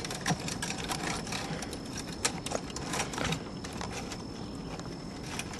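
Irregular light clicks and taps of hardware being handled and tightened by hand where a PVC bird-house pole fits onto its metal post.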